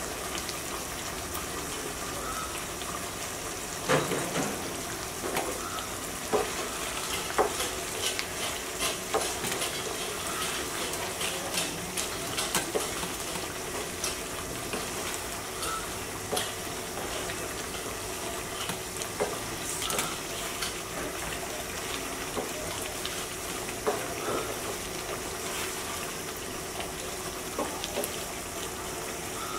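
Chicken in a thick yogurt-and-milk gravy simmering and sizzling in a nonstick pan as the gravy reduces, while a wooden spatula stirs it, scraping and knocking against the pan at irregular moments.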